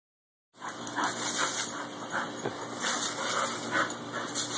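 Water hissing steadily from a garden hose spray nozzle, starting about half a second in, with sounds of dogs jumping in the spray.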